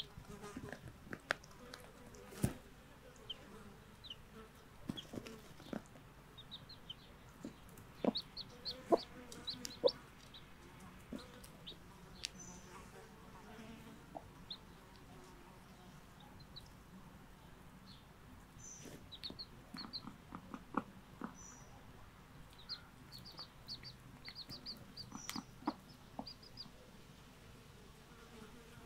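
Brahma hen clucking low while her newly hatched chicks peep in short, quick runs of high calls, with a few sharp taps that are loudest about eight to ten seconds in.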